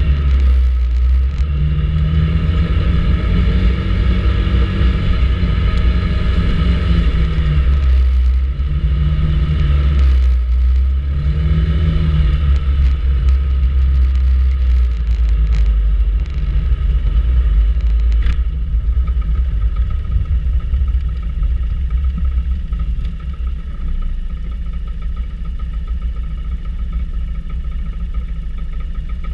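Vespa GTS 300 ie scooter's single-cylinder four-stroke engine running on the move with a deep rumble. Its pitch rises and falls several times in the first dozen seconds as the throttle is worked, then it runs steadier and a little quieter toward the end.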